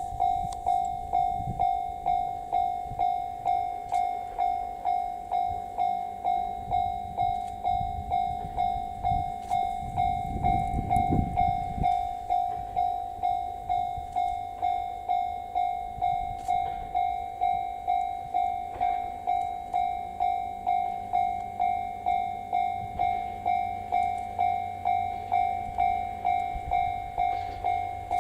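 Japanese railway level crossing alarm ringing on and on, one steady ding about twice a second. A low rumble swells under it around ten to twelve seconds in.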